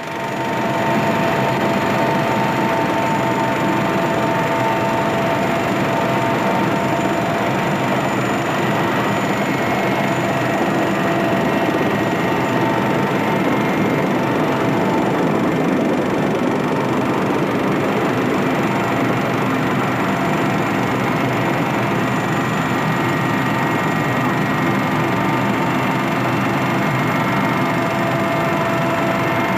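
Military helicopter's turbine engines and rotor running, heard inside the cockpit: a loud, steady din with several steady high whining tones over it, starting abruptly.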